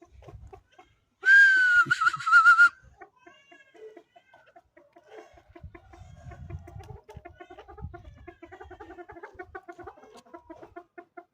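Chukar partridge calling, a rapid run of short clucking chuk notes repeated many times a second. Near the start a loud, wavering high call sounds for about a second and a half.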